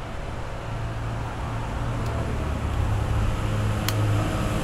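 Charcoal briquettes catching fire as they are lit: a low rumble of flames that grows louder as the fire spreads, with a couple of faint clicks.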